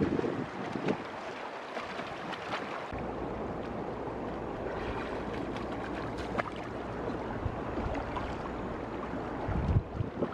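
Shallow river water rushing, with a few sharp splashes as a large catfish thrashes in the water. Wind rumbles on the microphone from about three seconds in.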